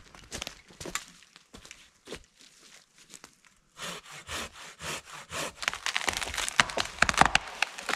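A handsaw cutting into a dead standing tree. The strokes are sparse at first, then quick and steady from about four seconds in and growing louder, and near the end the wood cracks and splinters as the trunk gives way.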